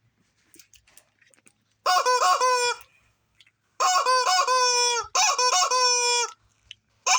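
Domestic fowl giving four loud, drawn-out calls, each about a second long, with a short break between them.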